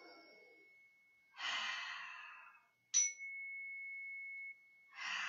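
A small handheld chime is struck with a mallet about three seconds in. It rings one clear high tone that holds steady and is cut off about a second and a half later, while the ring of an earlier strike fades at the start. Between the strikes a long, deep breath is heard, drawn in time with the chime to settle in.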